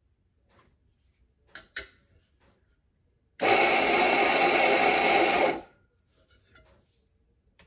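Rancilio Rocky burr grinder grinding coffee beans straight into a portafilter: its motor starts suddenly about three and a half seconds in, runs steadily for about two seconds, then stops. A couple of light knocks come a second or two before it.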